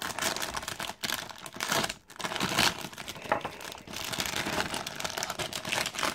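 Thin clear plastic bag crinkling and rustling as a plastic model kit runner is handled inside it and pulled out.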